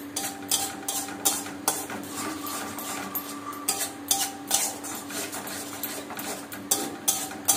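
Flat metal spatula scraping and knocking around a metal kadai, stirring and frying down a tomato-onion spice masala, about two strokes a second. A steady low hum runs underneath.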